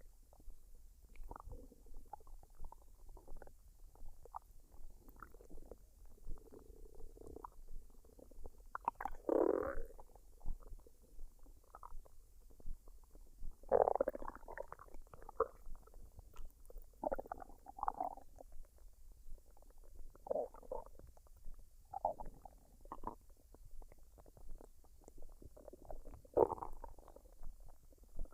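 A woman's stomach gurgling and rumbling as it digests a full meal: irregular short gurgles every second or two, with louder ones about a third of the way in, around halfway, and near the end.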